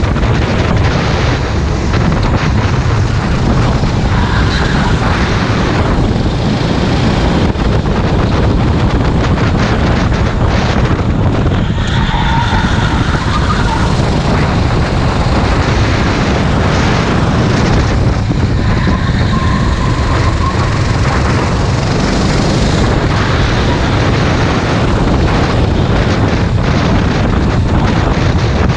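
Onboard sound of a racing kart's engine running at speed around the track, loud and unbroken, with wind noise on the microphone.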